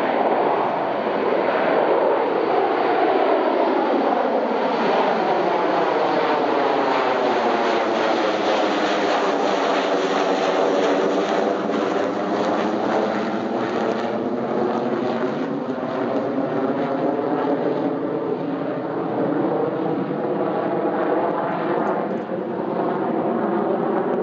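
Boeing 727 on approach with gear down, passing low overhead and then moving away: the jet noise of its three rear-mounted JT8D turbofans, loud and steady, with a sweeping, phasing swish as it goes over.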